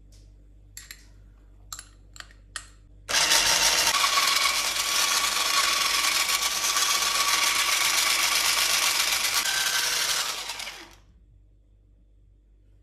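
Electric hand mixer with wire beaters whisking soft curd cheese in a glass bowl: a steady whirr with a faint motor whine for about eight seconds, then it switches off. A few light clicks come just before it starts.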